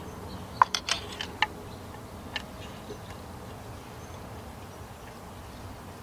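A quick run of sharp clicks about a second in, then a single click, as the compression tester hose and its fittings are handled, over a low steady hum.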